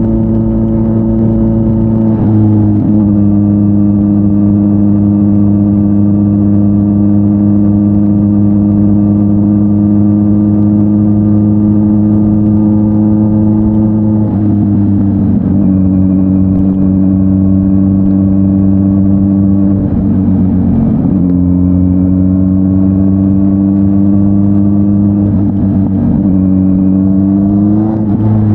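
Kawasaki Z900's inline-four running through an SC-Project S1 aftermarket exhaust while riding, the engine note held mostly steady at cruising revs. A few times the pitch dips briefly and settles at a new level, and near the end it rises and then drops, as with throttle changes and gear shifts.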